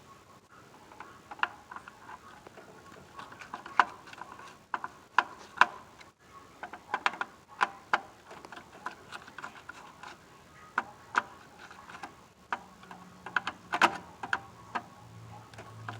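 Scattered small clicks and taps at uneven intervals as wire terminals are handled and pulled on a furnace control board.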